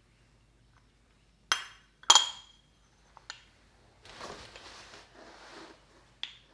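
Small dishware clinking: two ringing clinks about a second and a half and two seconds in, a light click, then soft rustling for a couple of seconds and one more clink near the end.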